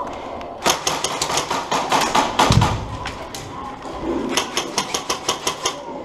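Airsoft guns firing in quick strings of sharp cracks, two bursts with a short gap between them, and a single heavy thump about two and a half seconds in.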